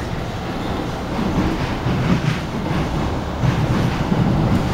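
MTR M-Train electric metro train running, heard from inside the car: a steady rumble of wheels on the track that grows a little louder about a second in.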